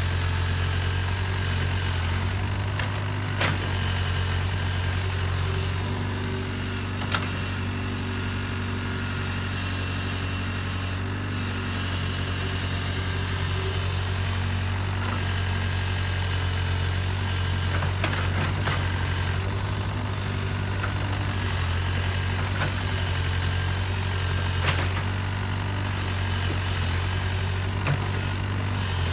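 Small crawler excavator's diesel engine running steadily as it digs, with a handful of short sharp knocks from the working machine scattered through.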